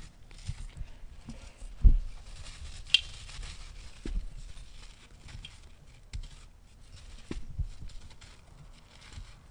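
Dry sand-and-cement chunks crunching and crumbling as fingers squeeze and break them, with gritty grains pattering onto loose dry sand. A few low thumps, the loudest about two seconds in, and a sharp crack about three seconds in.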